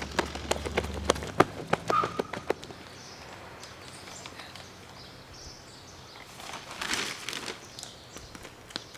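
Quick running footsteps on pavement, then a quieter outdoor background with a short bird chirp and a brief rustle about seven seconds in.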